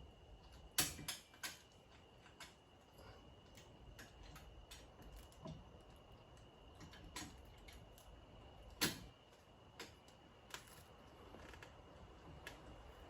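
Scattered sharp clicks and taps of hand tools and small mounting hardware being worked, an Allen wrench on bolts and clip nuts, with the loudest clicks about a second in and again about nine seconds in. A faint steady high whine runs underneath.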